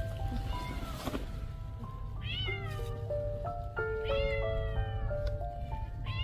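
A cat meowing three times, each call rising and then falling in pitch, the middle one the longest. Background music of slow held melodic notes plays under the meows.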